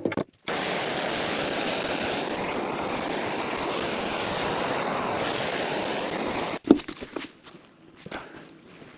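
A loud, steady rushing noise with no clear pitch that cuts off suddenly about six and a half seconds in, followed by light clicks and knocks of parts being handled on the bench.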